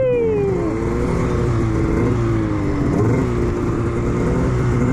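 Arctic Cat two-stroke snowmobile engine under the rider, pulling through deep powder. Its pitch falls off a throttle blip at the start, then holds at part throttle with a couple of small surges.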